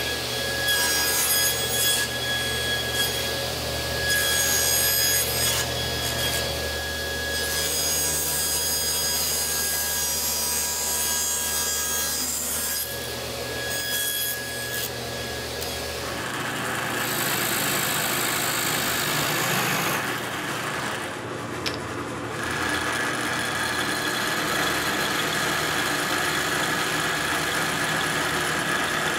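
Table saw running with a steady motor hum while small pieces of maple are crosscut on a sled. About halfway through, the hum stops and a drill press bores holes into the maple.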